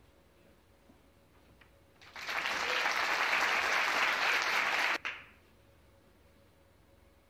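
Snooker audience applauding, starting about two seconds in and cutting off abruptly about three seconds later.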